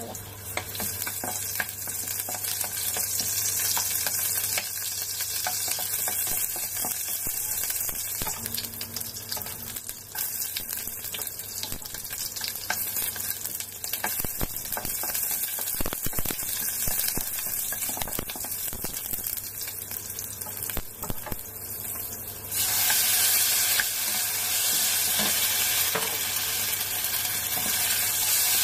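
Onion pieces sizzling in hot oil in a nonstick frying pan, with a wooden spatula tapping and scraping as it stirs. About 22 seconds in, raw chicken breast pieces go into the pan and the sizzle becomes suddenly louder and stays so.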